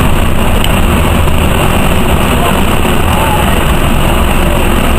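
Steady engine and road noise inside a moving NovaBus RTS city bus, a constant low rumble.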